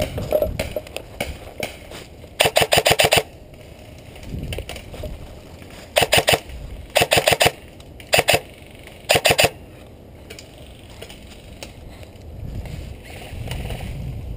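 Airsoft electric rifle firing five short bursts of rapid shots: the first about two and a half seconds in, the other four close together between about six and nine and a half seconds in.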